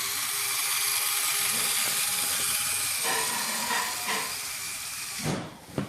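Lego Technic electric motors and plastic gears whirring steadily, the pitch shifting about three seconds in, with a short thump near the end.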